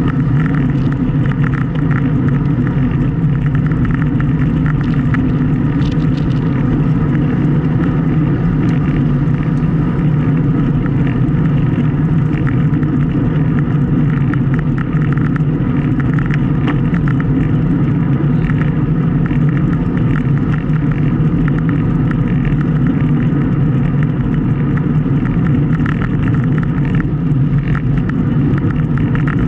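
Steady wind noise rushing over the microphone of a bicycle rider's action camera while riding, heaviest in the low end and unchanging throughout.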